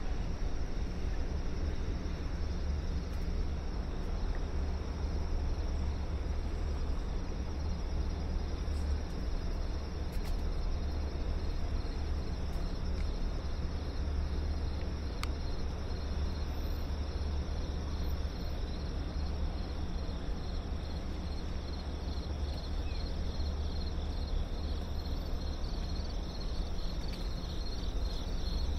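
Insects chirring in a fast, even pulsing trill, over a steady low city rumble.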